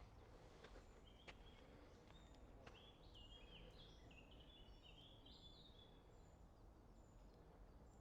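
Near silence: quiet woodland with faint birdsong, a run of quick stepped notes about three seconds in that lasts a couple of seconds, and a few faint clicks before it.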